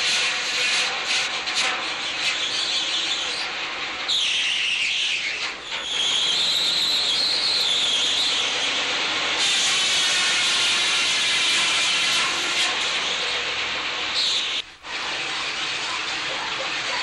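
Working sawmill machinery running loudly and steadily. A high saw whine rises about four seconds in and holds for a few seconds as the saw cuts through wood, and a shorter whine comes near the end.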